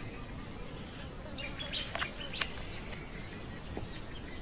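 Steady, high-pitched insect chirring, with a few faint clicks and taps about two seconds in.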